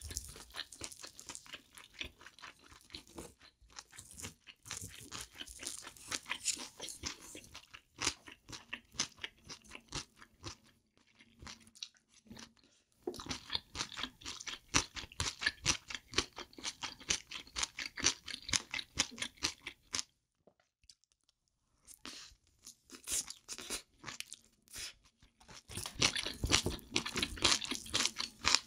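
Close-miked chewing of spicy fried rice with octopus and abalone: rapid, dense clicky mouth sounds, stopping for a short pause about two-thirds of the way through.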